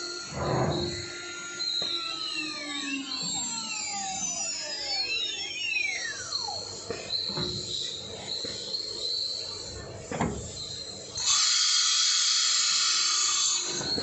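CNC machining center running its automatic tool change: motor whines glide up and down in pitch, with a few dull clunks. Near the end comes a loud hiss of compressed air lasting about two seconds.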